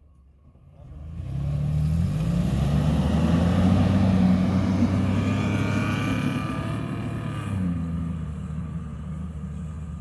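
Mitsubishi Pajero SUV's engine pulling hard as it drives up a loose sand slope. The revs rise about a second in and stay high and loud under load, then drop back to a lower, steadier run near the end.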